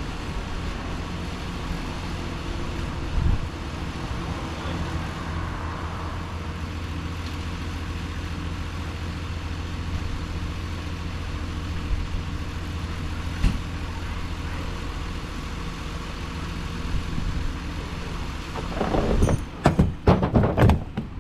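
An engine running steadily at idle, a low even hum. Near the end comes a burst of louder, irregular knocks and clatter.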